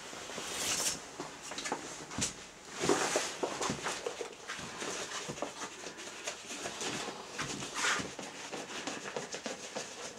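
Heavy rubber clothing rustling and creaking as the wearer moves about and takes hold of an exercise bench, in irregular swishes with scattered small knocks.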